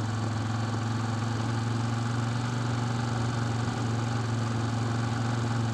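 Side-by-side UTV engine running steadily at a constant pitch, a low even drone with no revving.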